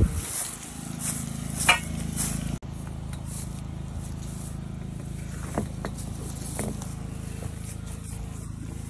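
Portable generator engine running steadily with a low hum, with a few light knocks and a brief dropout about two and a half seconds in.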